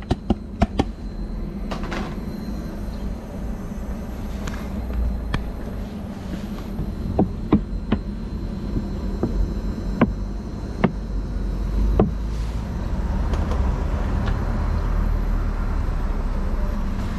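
Scattered sharp clicks and knocks from handling a stainless-steel pot and a plastic oil bottle at the stove, over a steady low outdoor rumble.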